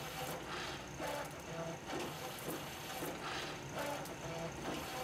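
DigiFlex ProCut EZ semi-rotary label die-cutting and laminating machine running, its servo-driven cycle repeating a little more than once a second as the label web feeds through and rewinds.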